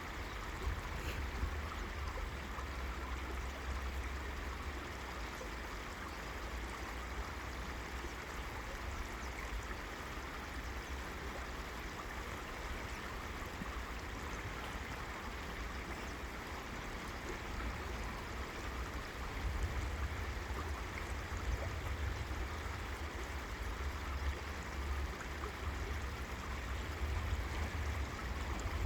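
River water flowing steadily, a continuous rushing and babbling with a low rumble underneath.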